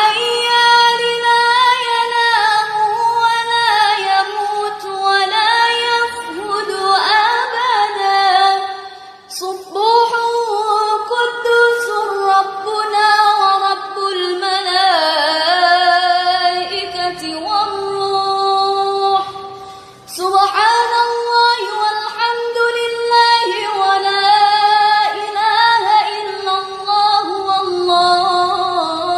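An Arabic nasheed sung by a high voice, with brief pauses about 9 and 20 seconds in.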